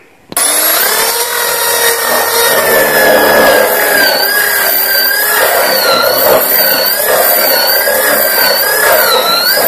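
Electric drill with a 35 mm hinge boring bit cutting a concealed-hinge cup hole into a laminated board. It starts suddenly just after the beginning and runs steadily under load, its motor whine wavering up and down in pitch as the bit bites into the board.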